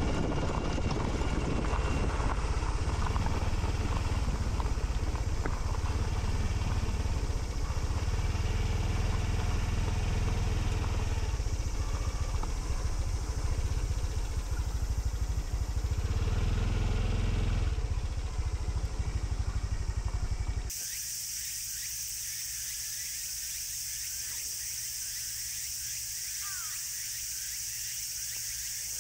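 Honda CT125 Hunter Cub's single-cylinder engine running while riding, heard as a loud low rumble mixed with noise. About two-thirds of the way through it cuts off suddenly to a quieter, steady high hiss.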